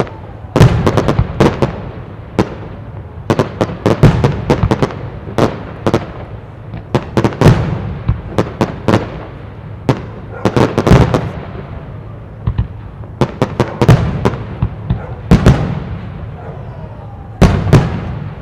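Display fireworks bursting overhead: rapid, irregular sharp bangs, often several in quick succession, with heavier deep booms every few seconds.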